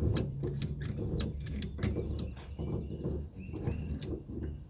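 Irregular clicks and knocks, several a second, from tools and a part being worked loose in a car's engine bay, over a steady low hum.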